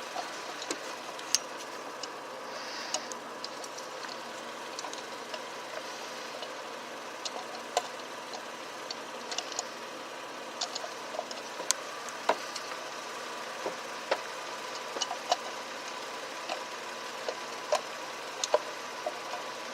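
Scattered, irregular sharp clicks and clinks of hand tools and metal and plastic parts being handled under the hood around the distributor, over a steady hum.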